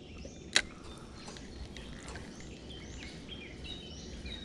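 Small birds chirping repeatedly in short high notes over a steady low outdoor background, with one sharp click about half a second in.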